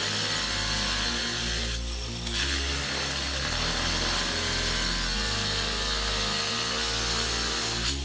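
Cordless angle grinder with a dry-cutting blade cutting a square outlet hole into porcelain tile, a steady high grinding noise. The cutting noise drops out for a moment about two seconds in, then carries on.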